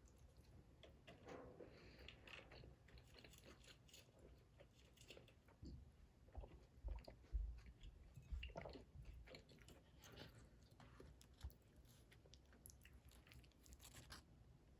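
Faint sounds of a person eating: soft chewing and crunching with scattered small clicks.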